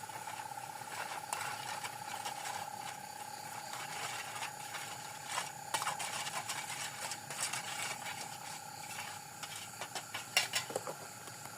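A night insect trilling steadily at one high pitch, with irregular clicks and rattles over it, loudest about ten seconds in.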